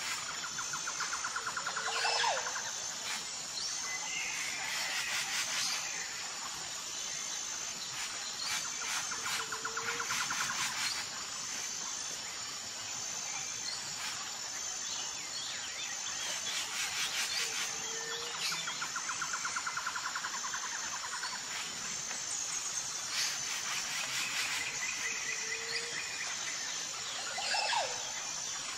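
Background nature ambience of birds calling and insects trilling steadily, a short pattern that repeats about every eight seconds like a looped track.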